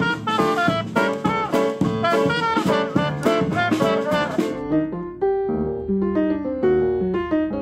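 Jazz quartet playing: a trumpet leads over keyboard, double bass and a drum kit with cymbals. About four and a half seconds in, the band music cuts off and slower piano notes follow, without drums.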